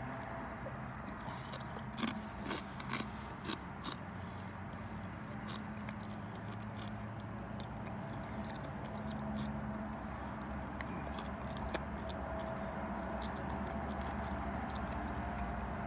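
A person biting and chewing crunchy chips, with a cluster of sharp crunches about two seconds in and lighter crunching after, over the steady low hum of a car cabin.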